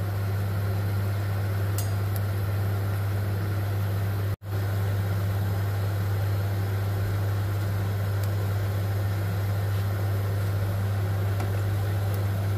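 Seed oil sizzling as cauliflower zeppole deep-fry in a pan, over a steady low hum, with a few light clinks from a metal skimmer. The sound cuts out for an instant about four seconds in.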